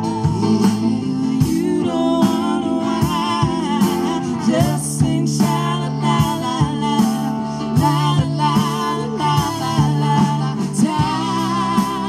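Live folk band playing: a man sings lead over acoustic guitar, banjo and a drum kit keeping a steady beat.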